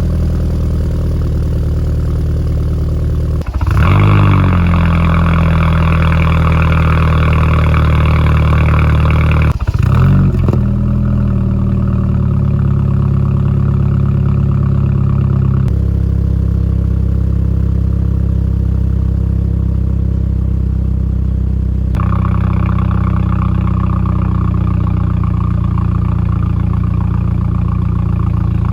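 BMW Z4's N20 turbocharged 2.0-litre four-cylinder running through an exhaust with the resonator replaced by a straight pipe. The engine note is steady, and its pitch drops sharply and recovers twice, a few seconds in and again about ten seconds in.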